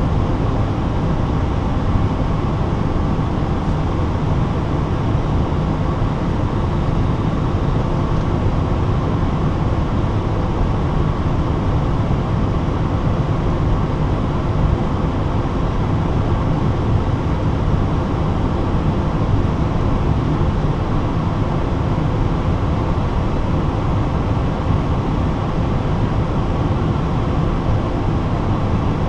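Steady low rumble inside an Airbus A320 cockpit as the airliner taxis on its engines at idle thrust.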